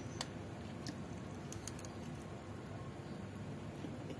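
Soft eating sounds: quiet chewing with a few faint small clicks over a steady low background noise.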